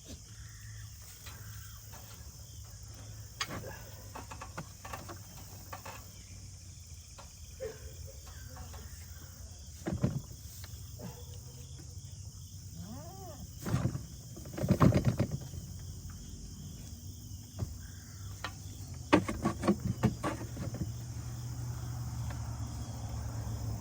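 Steady chorus of crickets, with a low hum under it. A few short, louder knocks and brief pitched sounds break in about ten, fourteen to fifteen, and nineteen to twenty seconds in.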